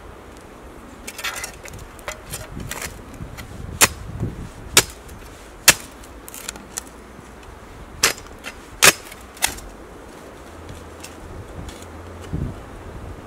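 Metal spade digging into soft forest soil: a run of sharp chops as the blade is driven in and the soil levered out, the loudest half a dozen falling in the middle, with scraping and rustling between.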